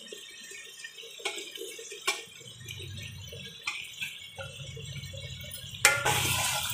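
A few light clinks of a metal ladle against a steel bowl and the pressure cooker as chopped tomato, ginger and green chillies are tipped into the pot. About six seconds in, a sharp clack, then the masala and meat sizzle loudly in hot oil as stirring starts.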